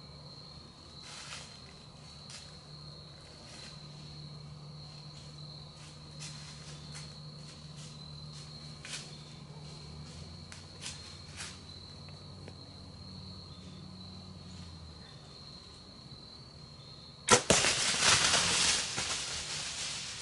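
Bow shot near the end: one sharp crack of the string and arrow strike, followed at once by a loud rush of the buck crashing away through dry leaf litter that fades over a few seconds. Before it, a faint steady insect trill and a few small rustles and clicks.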